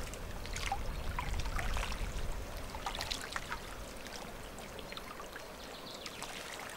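Water splashing and trickling in small irregular splashes as a hooked bream is brought in and landed.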